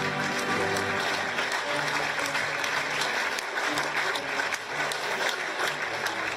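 Crowd applauding steadily, with music of held low notes playing underneath.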